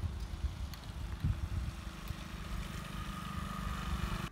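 Motorcycle engine running as it approaches along the road, growing a little louder towards the end and then cutting off suddenly.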